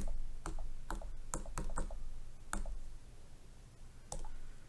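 Stylus pen tapping keys on a tablet's touchscreen keyboard: about eight sharp, uneven clicks, most of them in the first two seconds and a last one about four seconds in.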